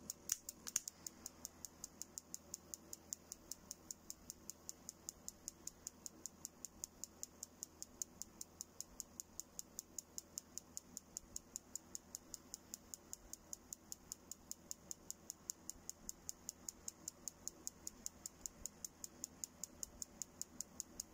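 Truma Trumatic 3002 heater's spark igniter clicking faintly and steadily, about four sparks a second, at the burner's ignition electrode. It keeps sparking although the electrode is being heated by a flame, so the flame is not being detected through the ionisation electrode; the owner suspects a missing ground connection.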